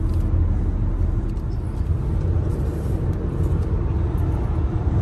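A car on the road: steady low rumble of road and engine noise.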